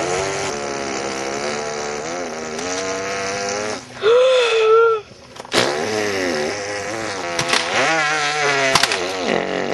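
A person's voice imitating a motor scooter engine: a continuous buzzing 'vroom' whose pitch wavers up and down as if revving. There is a louder, higher cry about four seconds in and a short break at about five seconds.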